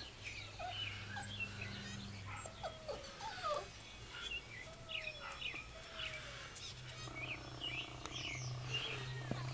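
Miniature Australian shepherd puppies whimpering and yipping: many short, high calls that bend in pitch, with a few longer falling whines.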